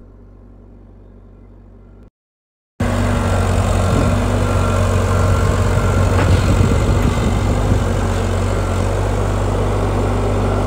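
The 123-horsepower Iveco diesel engine of a tracked digger derrick running steadily. It is faint at first, then, after a brief gap in the audio about two seconds in, it comes through loud.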